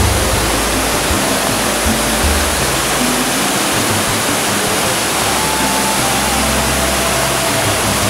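Waterfall cascading down a rocky slope: a steady, loud rush of falling water, with soft background music playing beneath it.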